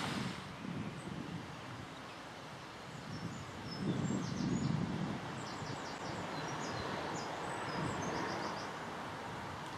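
Outdoor ambience: a low, gusty rumble of wind on the microphone, with a small bird chirping a quick run of high notes from about three to seven seconds in.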